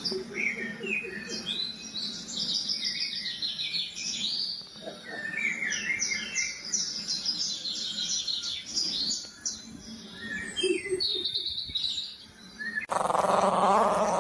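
Dog whining in many short, high-pitched squeaks and chirps, one after another. Near the end a louder, fuller sound cuts in abruptly.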